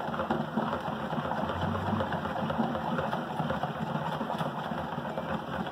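A stick stirring foamy liquid soap in a plastic bowl: continuous sloshing and swishing, with a low steady hum underneath.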